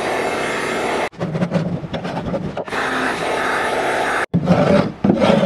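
Corded heat gun blowing hot air steadily onto epoxied plywood to soften the epoxy, cut off abruptly a few times. Near the end the sound becomes more uneven.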